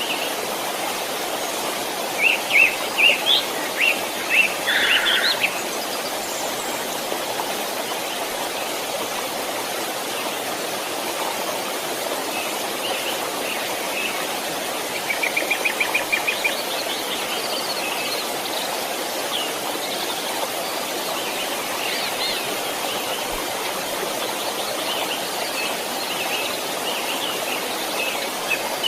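A creek flowing steadily, with small birds chirping over it: a cluster of calls about two seconds in, a quick run of even chirps around the middle, and scattered calls after.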